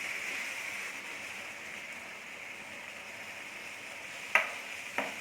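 Rice frying in oil and tomato sauce with pieces of fish and seafood in a pan, a steady sizzle as it is stirred. Two sharp knocks near the end, from the stirring utensil against the pan.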